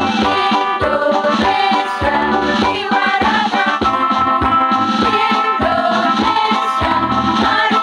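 Women's choir singing an Indonesian patriotic song in Indonesian, over an instrumental accompaniment with a steady drum beat.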